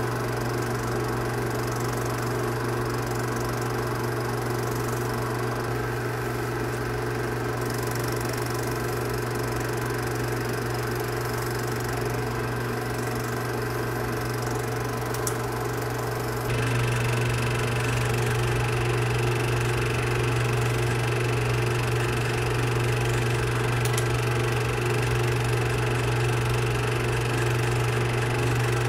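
Film projector running: a steady mechanical motor hum with no speech or music, stepping up a little louder a little past halfway.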